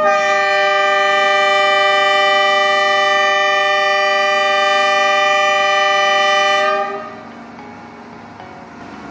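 Locomotive air horn sounding one long chord-like blast that holds steady for about seven seconds and then cuts off; a train horn signalling that the train is setting off.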